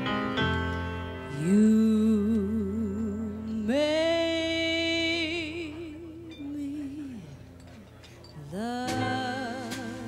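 A woman singing a slow jazz ballad over a soft band accompaniment, in three long held notes with wide vibrato.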